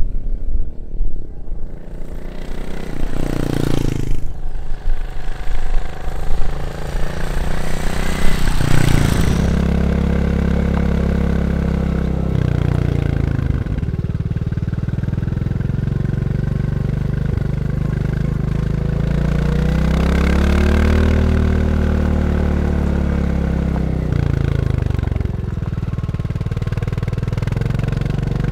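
Royal Enfield Classic 350's single-cylinder engine and exhaust as the bike rides past, loudest about three to four seconds in. Then it is heard from on board while riding, the engine note rising and falling with the throttle, with brief dips in between.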